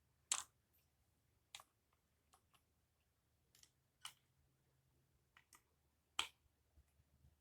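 Scattered light clicks and taps of plastic marble run pieces being handled and fitted together, the loudest two near the start and about six seconds in.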